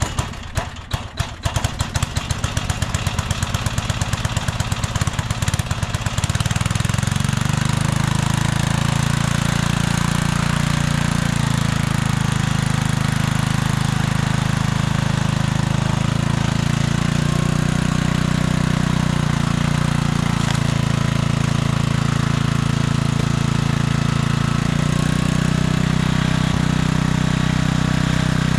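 Small gasoline engine of a hydraulic log splitter: it runs slowly with separate, evenly spaced firing pulses at first, then speeds up about six seconds in and runs on steadily at a higher speed, its note shifting slightly now and then.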